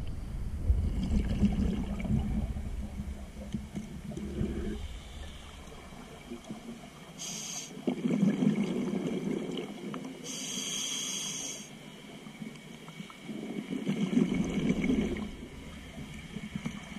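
Scuba diver breathing through a regulator underwater: two short hisses of inhaled air and three spells of bubbling rumble from exhaled bubbles, in a slow, even breathing rhythm.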